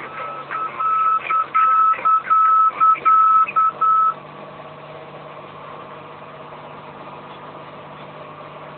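Middle-marker beacon tone from a Cessna 182 Skylane's audio panel, a high beep keyed in alternating dots and dashes for about four seconds, over the steady drone of the single piston engine: the sign of passing the ILS middle marker on short final. The beeping stops about four seconds in and the engine drone carries on.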